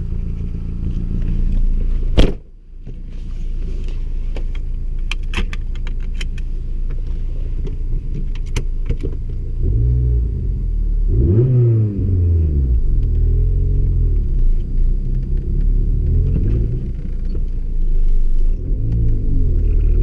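VW Polo 6N2 GTI's 1.6-litre four-cylinder engine running with a steady low drone, with one sharp knock about two seconds in. From about ten seconds on the engine revs up, its pitch rising and dropping several times as the car accelerates.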